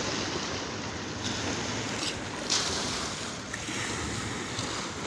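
Sea waves washing on the shore: a steady rushing of surf that swells about two and a half seconds in.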